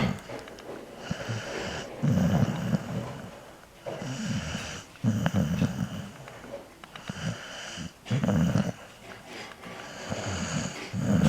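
Staffordshire bull terrier snoring in its sleep: a loud, low, rasping snore about every three seconds, with quieter breathing between them.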